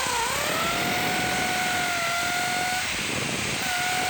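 Electric drill running steadily, boring a hole through the outer pipe of a motorcycle exhaust down to the loose inner pipe so the two can be plug-welded together. The drill's whine drops out for a moment about three seconds in and then picks up again.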